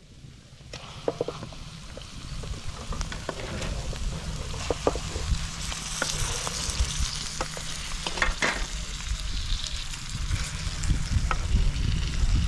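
Oil sizzling in an aluminium pan of fried onions and tomato paste as pieces of fried chicken are laid into it, with scattered sharp pops and clicks of spattering oil and utensil contact. The sizzle grows louder over the first few seconds, over a steady low rumble.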